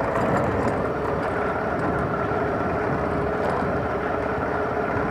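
Honda CG 125 Fan motorcycle's single-cylinder four-stroke engine running steadily as the bike rolls slowly over cobblestones, with even road noise.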